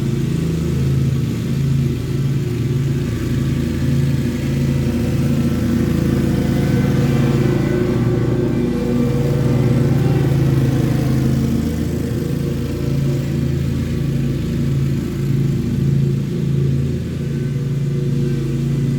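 Lawn mower engine running steadily while mowing, its level wavering slightly as the load changes.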